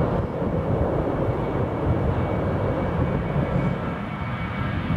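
British Airways Airbus A319 twin jet engines at high power during its takeoff, a steady loud rumble with a faint high whine, easing slightly near the end.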